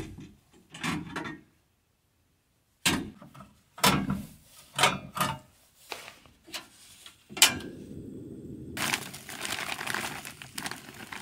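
A portable butane camp stove being handled and lit, with a series of sharp clicks and knocks. Its burner then runs with a steady low hiss, and near the end a bag of frozen chicken and penne is tipped into the frying pan with a loud rattling rush.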